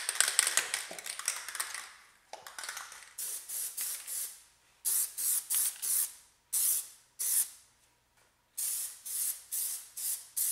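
Plasti Dip aerosol spray can hissing as rubber coating is sprayed, first in a long steady spray and then in many short bursts with brief gaps.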